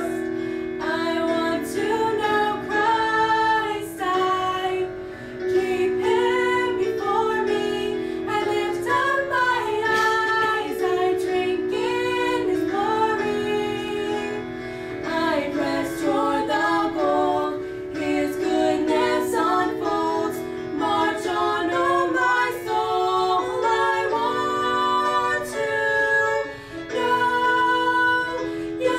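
Two female voices singing a duet in harmony, with short breaths between phrases.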